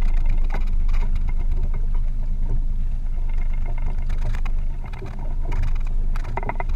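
Steady low rumble aboard a small boat at sea, with a few faint clicks over it.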